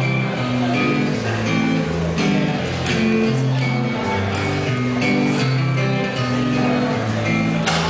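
Solo acoustic guitar strummed through a steady pattern of changing chords: the song's instrumental introduction before the vocals come in.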